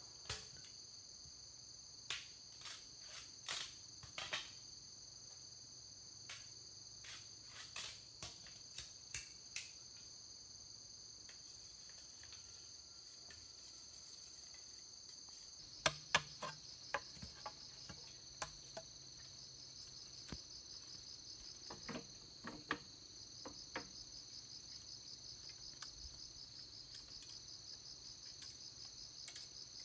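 Steady high-pitched chirping of insects, turning to a fast pulsing over the last few seconds. Scattered sharp knocks and clicks come in small clusters a few seconds in, around the middle and a little later.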